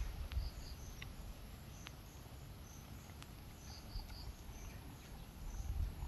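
Faint outdoor ambience of short, high, repeated chirps like crickets, with a few light clicks.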